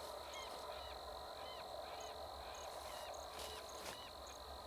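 A run of short, high chirping calls, two or three a second, over a faint steady high-pitched tone.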